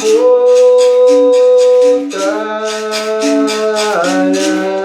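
A singer holding a long note of a hymn, the pitch stepping up about two seconds in and falling back near the end, over a berimbau's low tones switching between two pitches and the steady rhythmic shaking of its caxixi rattle.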